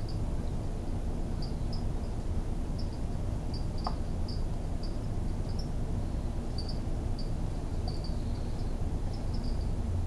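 Steady low room hum with faint, short, high-pitched chirps repeating irregularly, and a single click about four seconds in.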